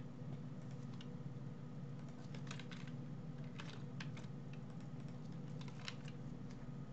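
Computer keyboard keys clicking in a few short runs of typing over a steady low hum.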